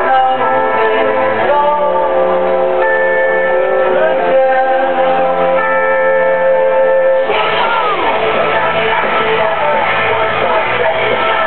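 Music with singing and guitar: long held notes, changing about seven seconds in to a fuller, busier passage.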